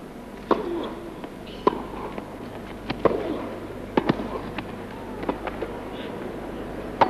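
Tennis rally: rackets striking the ball with a sharp pock every second or so, with the ball's bounces between them and a last hit near the end.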